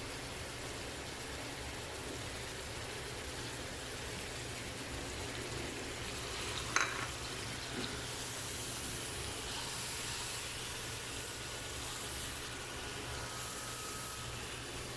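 Salmon fillets sizzling and bubbling in a lemon and garlic sauce in a frying pan, a steady frying hiss. A short sharp tap about seven seconds in, with a fainter one a second later.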